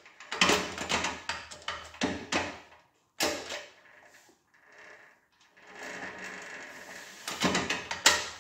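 Mechanical clicks and clunks from a Ducati Scrambler 350's gear lever and gearbox as the gears are shifted with the engine off, working back down towards neutral. The sharpest knock comes about three seconds in, then a quieter stretch, then a cluster of clicks near the end.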